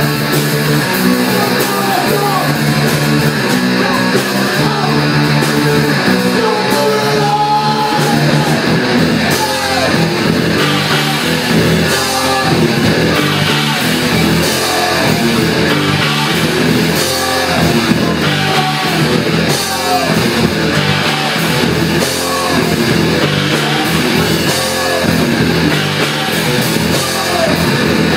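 Live rock band playing loudly and continuously: electric guitar and drum kit with a singer's vocals.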